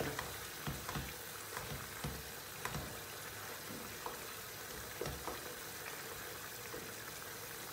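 Wooden spoon stirring a tomato and pepper sauce in a non-stick frying pan, with soft, irregular knocks of the spoon against the pan over a faint, steady sizzle of the sauce cooking.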